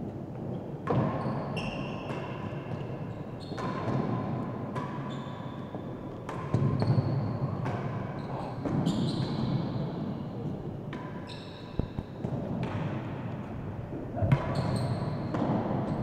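Real tennis rally: the hard ball knocking off rackets, walls and floor, about a dozen sharp hits at irregular intervals, several followed by a brief ringing tone, in the echo of the enclosed court.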